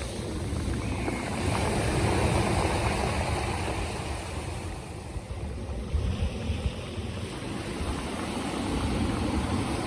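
Black Sea waves washing onto the shore, with wind buffeting the microphone; the surf swells louder a couple of seconds in and again near the end.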